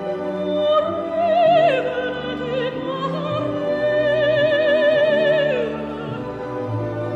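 Film score: a high operatic voice sings long held notes with wide vibrato over sustained orchestral chords. The melody drops in pitch about two seconds in and again near the end.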